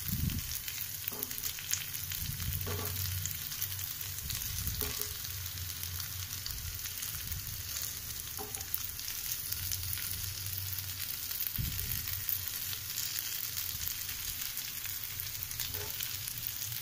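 Noodle cutlets sizzling steadily as they shallow-fry in hot oil in a nonstick frying pan over a medium flame, with a few light taps and scrapes of a wooden spatula turning them over.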